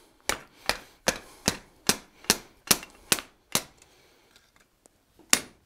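Hand hammer striking a hot square steel bar on the edge of an anvil, about nine steady blows at roughly two and a half a second, bending the end back into a short bend. After a pause of about a second and a half the blows resume near the end.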